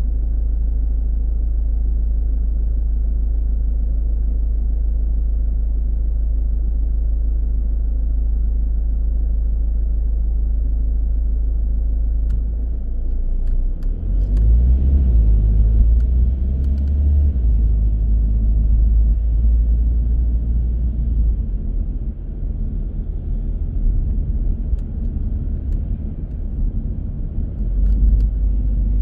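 Car driving, a deep, steady rumble of engine and tyres on the road. About thirteen seconds in it grows louder and uneven, with a few short clicks.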